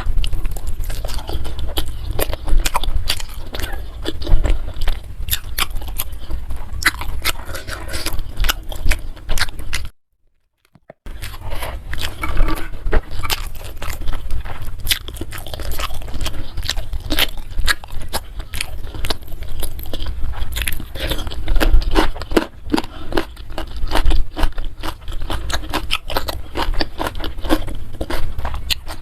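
Close-miked chewing of a mouthful of food: irregular crunches, wet mouth clicks and smacks. About a third of the way in the sound drops out to dead silence for about a second, then the chewing resumes.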